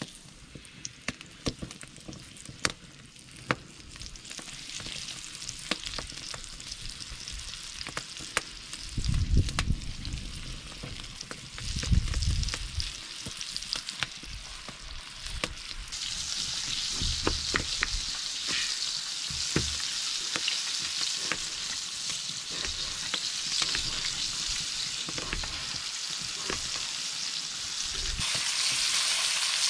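Bear grease frying in a cast-iron skillet, crackling and spitting, with a few low thumps as floured speckled trout fillets are laid in. About halfway through, the sizzle grows into a louder, steady hiss as the fish fry.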